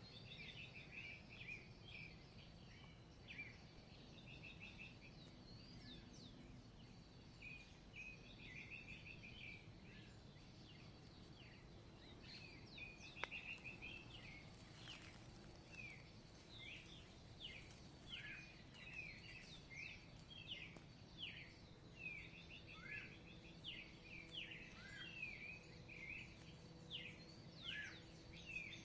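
Several songbirds singing and calling at once, faint: rapid chirps, short trills and quick falling whistles overlap throughout over a low hiss, with a thin steady high note beneath and one sharp click about halfway through.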